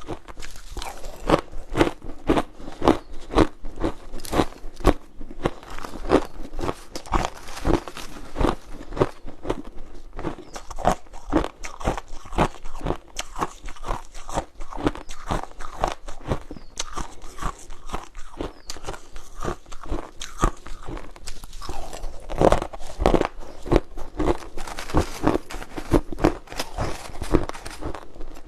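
Repeated close crunching, about two to three crunches a second, loudest about three quarters of the way through.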